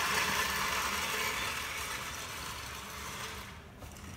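A vehicle's engine running, with its noise fading gradually and dying away near the end.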